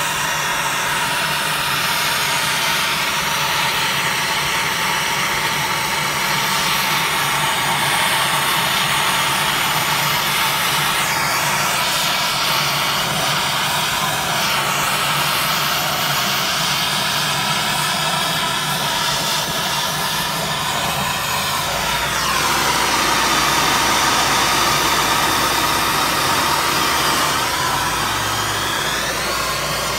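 Bernzomatic MAP-gas hand torch burning with a steady hiss as it heats cast-aluminium engine cases to brazing temperature. About two-thirds of the way through the flame's sound shifts in tone and grows fuller.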